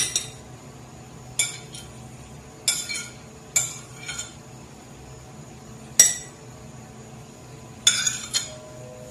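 Metal spoon clinking against ceramic bowls and a plate as chopped fruit is scooped and served: a handful of sharp, irregular clinks, with a longer pause midway and two in quick succession near the end.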